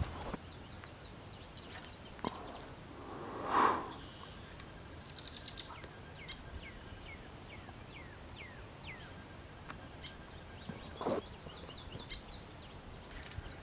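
Birds calling in the background: scattered short, falling chirps and a quick trill about five seconds in, over faint outdoor ambience. A brief, louder noise stands out a little before the trill.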